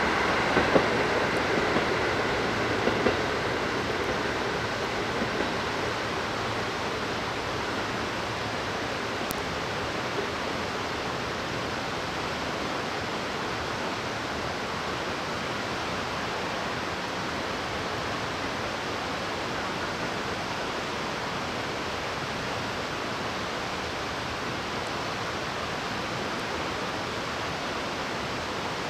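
A train receding over the first few seconds, a high squeal and a few clicks fading out, leaving a steady rushing noise.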